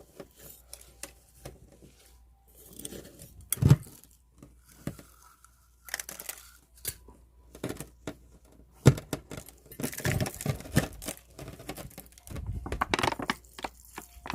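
Close-up handling noises from planting succulent cuttings into a pot of soil. Irregular rustling and crinkling with scattered small clicks, and two sharp knocks about four and nine seconds in.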